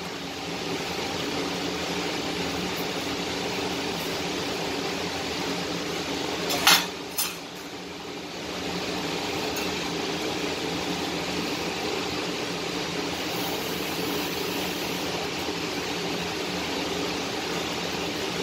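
Gas welding torch flame hissing steadily. Two sharp metallic clinks come about six and a half seconds in, after which the hiss briefly drops before resuming.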